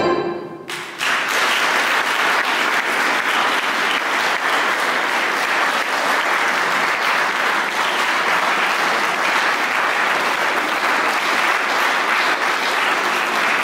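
The handbell choir's final chord dies away in the first second, then an audience applauds steadily for the rest of the time.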